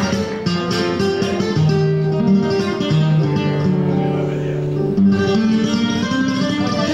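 Flamenco guitar playing a solo passage of plucked notes and runs, with no singing over it.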